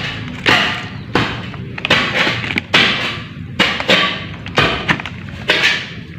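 Repeated sharp knocks and clatters, about one or two a second, each dying away quickly: digging and clearing tools striking soil and broken concrete rubble.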